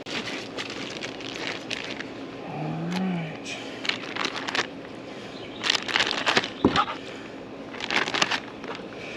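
Plastic bags rustling and crinkling in several short bursts as they are handled, with a brief hummed voice about three seconds in and a faint steady hum underneath.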